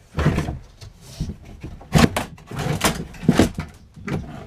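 A run of irregular knocks and clatters as a fishing rod is handled close to the microphone, with the sharpest knocks about two and three and a half seconds in.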